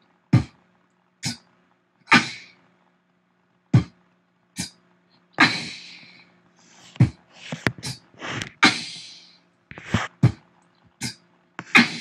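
Beatboxing into a handheld microphone: a slow B-T-K pattern of vocal percussion, with a thumping kick (B), a clipped hi-hat click (T) and a hissy snare (K). The sounds come about one a second, and the pattern repeats about four times.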